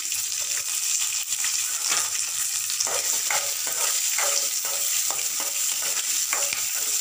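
Whole spices, dried red chillies, garlic and shallots sizzling in a little hot oil in a metal kadai, with a metal spoon scraping and stirring them against the pan from about two seconds in.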